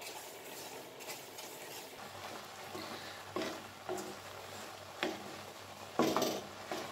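A spoon and spatula stirring and scraping crumbly food in a stainless steel pan, with a few louder scrapes against the pan in the second half.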